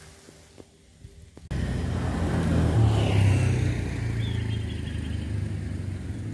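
Motor vehicle engine rumbling as it passes on a road, starting abruptly about a second and a half in and running on at a fairly steady level.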